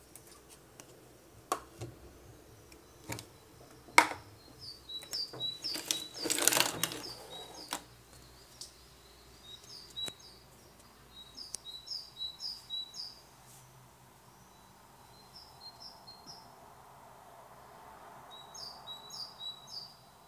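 Small birds chirping outside in quick runs of high, falling notes, repeated several times. A few sharp knocks come in the first four seconds, and a loud scrabbling rustle follows about six seconds in.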